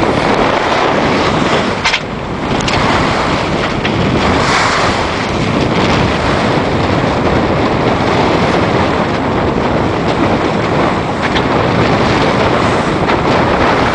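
Strong wind buffeting the microphone over the rush of waves and spray along the hull of a Tanzer 22 sailboat beating through chop, with a few short sharp noises now and then.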